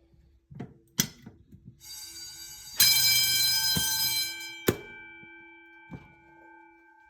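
A fire alarm bell rings briefly. Its gong is loud for about a second and a half, then dies away over a couple of seconds, with a few sharp clicks before and during it.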